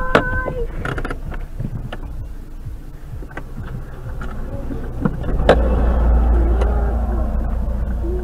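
Traffic noise heard from inside a car: a short steady tone at the start, a few sharp knocks and clicks, and a low rumble that swells about five seconds in.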